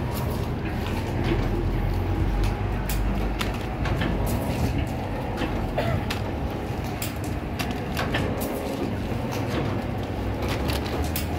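Automatic two-line cup sealing machine running, its mechanism giving irregular clicks and clacks about one to two a second over a steady low rumble.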